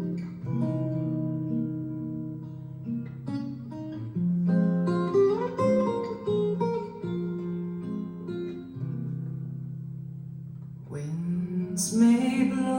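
Recorded music played back over Snell Type A/III vintage loudspeakers: the acoustic guitar opening of a jazz song, picked notes ringing and overlapping. A bright, sharp hit comes in near the end.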